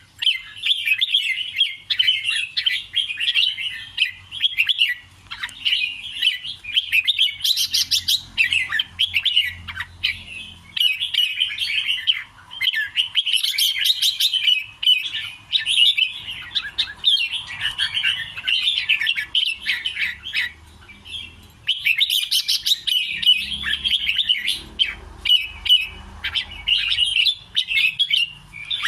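Red-whiskered bulbul singing, a long run of rapid, chirpy phrases, repeated and strung together with only short pauses between them.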